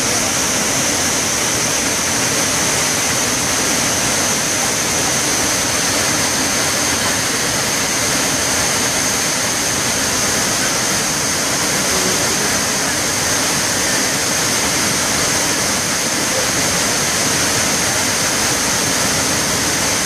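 Athirapally waterfall swollen by heavy rain: a torrent of whitewater crashing over the rocks in a loud, steady rush, with a constant high-pitched tone running over it.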